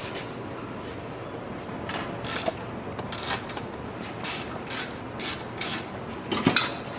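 Hand ratchet wrench clicking in short strokes, about ten in uneven pairs, with brief pauses between them.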